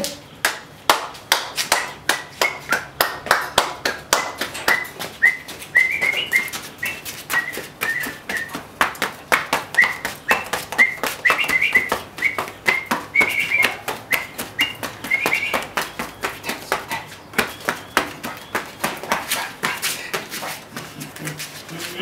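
A whistled tune over a steady beat of sharp taps or claps at about four a second; the whistling stops about sixteen seconds in while the tapping carries on.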